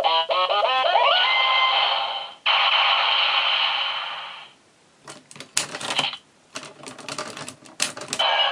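Gabrevolver toy electronic sound effects from its small speaker: a quick run of short rising tones, then a steady electronic charging buzz with a high tone for a few seconds. After a short pause, a rapid run of sharp plastic clicks from the toy being handled.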